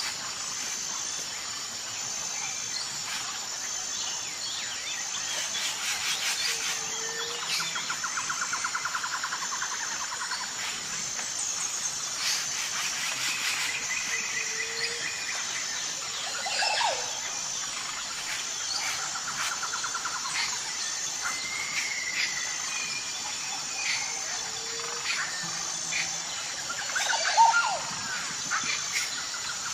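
Jungle ambience: assorted birds calling and chirping over a steady high insect drone, with a short rattling trill that comes back every several seconds and a louder call near the end.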